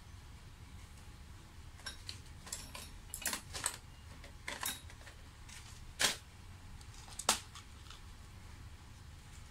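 Light clicking and rattling of a clear plastic parts organizer box being handled, with two sharper clicks about six and seven seconds in.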